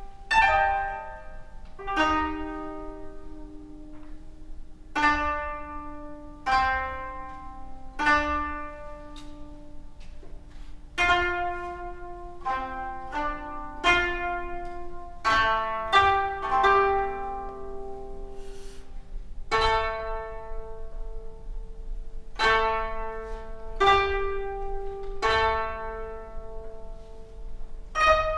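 Koto, the Japanese 13-string zither, tuned in kokin-jōshi and playing a slow instrumental passage. It plucks single notes and close pairs about a second apart, and each note rings out and fades.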